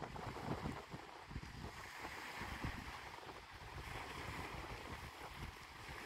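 Wind gusting on the microphone with an uneven low rumble, over the steady hiss and wash of small waves on choppy lake water.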